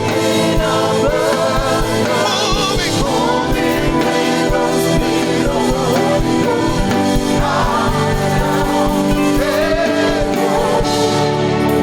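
Gospel worship music: voices singing with wavering held notes over sustained chords and a steady low drum beat.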